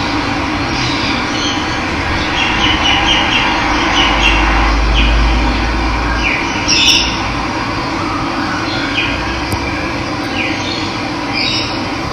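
Running water rushing steadily, with birds calling over it in short falling chirps, repeated many times. A low rumble swells briefly in the middle.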